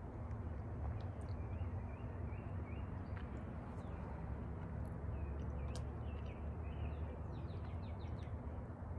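Small birds chirping in short, repeated calls over a steady low rumble.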